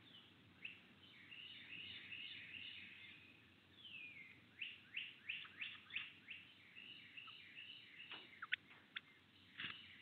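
Wild songbirds singing. Faint twittering chatter gives way about halfway through to a run of about six quick notes, each sliding downward. A few sharp high notes follow near the end.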